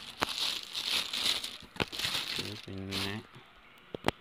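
Clear plastic packaging bag crinkling as a nylon strap is pulled out of it, with a few sharp clicks, several of them close together near the end.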